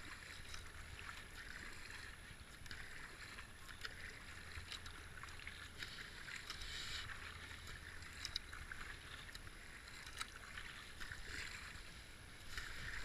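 Kayak paddle strokes: paddle blades dipping and pulling through river water with small splashes and drips, and water swishing along the hull of a racing kayak, over a low steady rumble.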